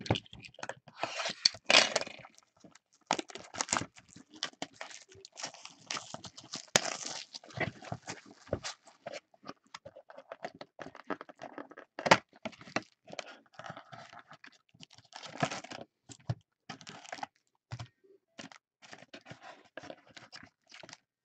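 Hands opening a cardboard box of 2014 Topps Chrome football cards and pulling out the card packs: a busy run of short rustles, scrapes and crinkles, with a sharp click about halfway through.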